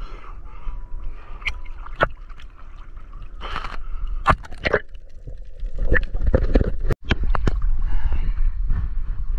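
Seawater sloshing and splashing around a camera held at the water's surface as a swimmer moves through choppy sea, with many sharp splashes and a steady low rumble of water on the microphone.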